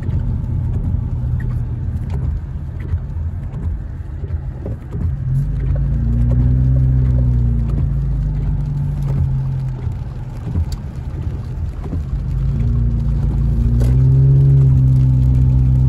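Car engine and tyre noise on a wet road, heard from inside the cabin while driving. The engine note rises as the car speeds up about six seconds in and again near the end.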